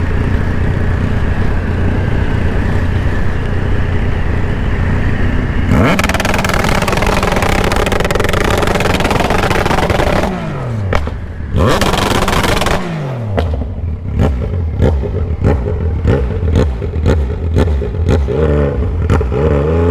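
Yamaha Tracer 900's three-cylinder engine through an open, muffler-less exhaust, cruising steadily, then revved hard for about four seconds with the pitch falling away as the throttle closes. A second short hard rev follows, then a run of sharp pops, about two or three a second, as the engine runs down.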